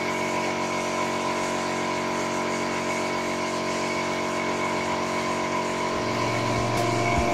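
Foxcot FL-24 2 HP air compressor running steadily: an even motor hum with steady tones over a hiss, loud enough to read 87 dB on a sound level meter held close by.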